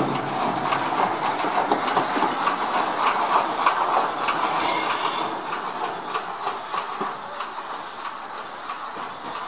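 Small steam tank engine running past with a rapid, regular beat and some steam hiss, growing quieter over the second half as it moves away.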